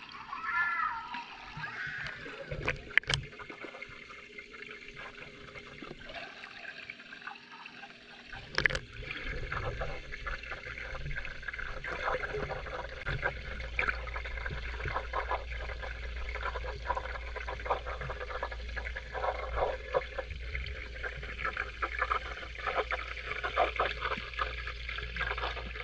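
Water splashing and lapping in a swimming pool as people swim, with scattered small splashes and a couple of sharp knocks. A steady low rumble sets in about eight seconds in.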